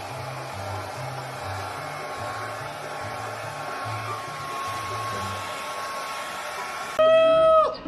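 A steady rushing, blower-like noise with a faint steady whine, over quiet background music with a stepping bass line. About seven seconds in it cuts to a loud pitched cry that holds its pitch and then drops.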